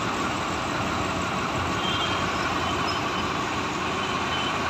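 Tractor engine running steadily, driving a pump that lifts floodwater out.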